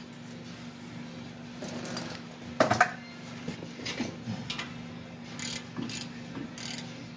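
Scattered metallic clinks and taps of hand tools being handled at a brake caliper, the loudest about two and a half seconds in, over a steady low hum.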